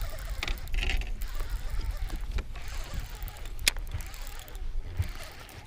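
Fishing reel being cranked while a hooked bass is fought and reeled in, over a steady low rumble, with one sharp click near the middle.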